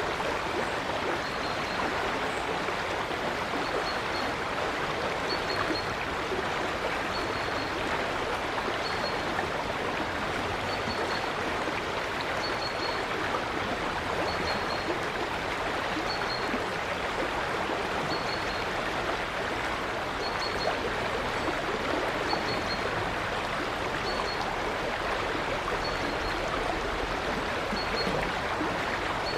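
A river flowing with a steady rush of water. Over it a small bird repeats a short, high chirp about every one and a half to two seconds.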